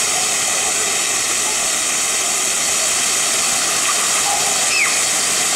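Rows of ground-level splash-fountain jets spraying up and falling onto wet paving, a steady rushing hiss of water. A brief high-pitched voice cuts through near the end.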